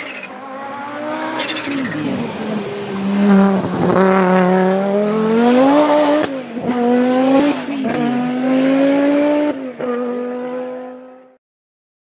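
Supercar engine accelerating hard as it drives by, its pitch climbing and then dropping at each of several quick gear shifts, with sharp exhaust booms at the shifts. The sound fades away about a second before the end.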